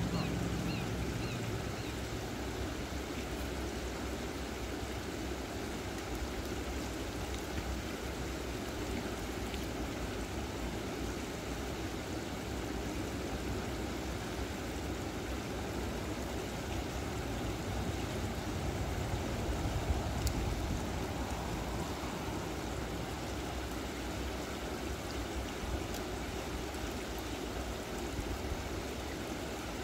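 Steady rushing of water running through a concrete weir spillway.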